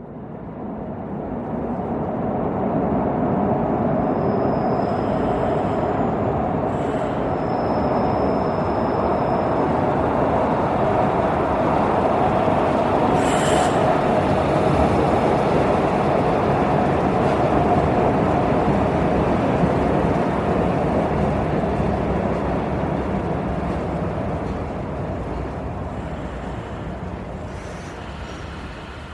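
Metro train running on its rails, a steady noise of wheels and motor that builds over the first few seconds and fades away over the last several. A thin high whine comes through twice, around five and eight seconds in, and there is one sharp click about midway.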